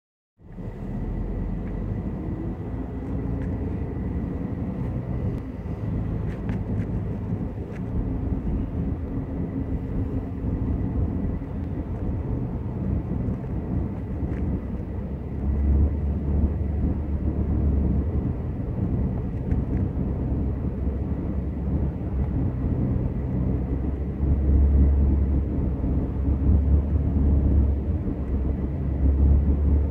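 Road and engine noise from inside a moving car's cabin: a steady low rumble that grows louder about halfway through and again near the end.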